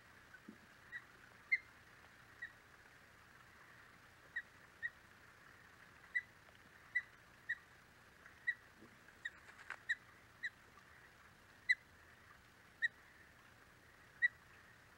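Osprey calling: a slow, irregular series of short, high whistled chirps, roughly one a second.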